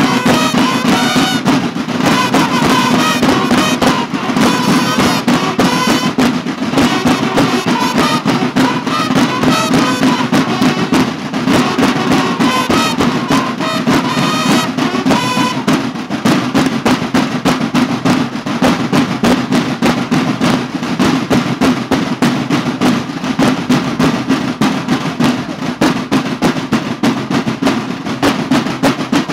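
School drum and bugle corps (banda de guerra): several slung snare drums playing a fast march beat, with bugles sounding a call over them for about the first half, then the snare drums alone.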